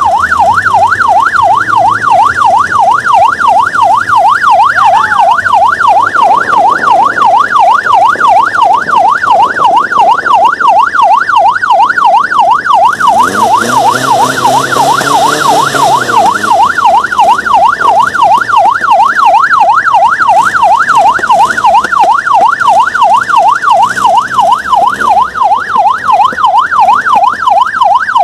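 Electronic yelp siren warbling rapidly up and down, about three sweeps a second, loud and unbroken. About halfway through, a brief hiss and a lower rumbling sound join it for a couple of seconds.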